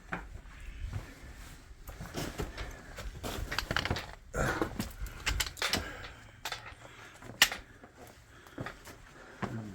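Irregular scuffs, knocks and clicks of a hiker scrambling over rocks, with gear and the handheld camera being handled.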